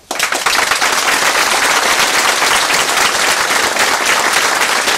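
A crowd applauding loudly: many hands clapping in a dense, steady round that breaks out all at once.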